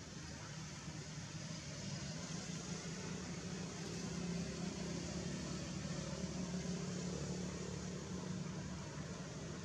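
A low engine hum over a steady hiss, growing louder from about two seconds in and easing slightly near the end.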